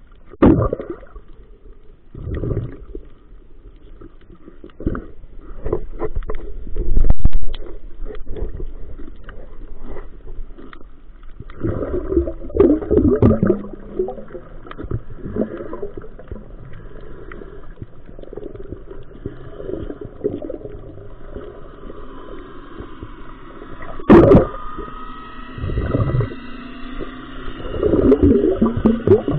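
Muffled underwater sound picked up by a camera in its waterproof housing: irregular knocks and gurgling water and bubble surges, the loudest knocks about seven seconds in and again near 24 seconds.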